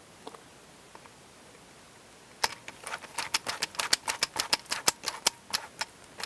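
A ratcheting screwdriver clicking in quick, uneven runs of about five or six clicks a second, starting about two and a half seconds in, as it drives the small star-head screws that hold a Glock MOS optic adapter plate.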